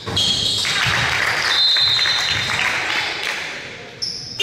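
Basketball gym game noise: a short high whistle blast at the start, then about three seconds of crowd noise with cheering and clapping and high sneaker squeaks, and another short whistle near the end.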